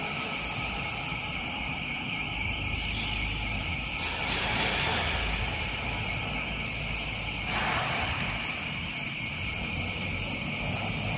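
4+1-axis CNC bridge cutting machine running: a steady mechanical noise with a constant high whine, growing brighter and hissier for a couple of seconds around the middle.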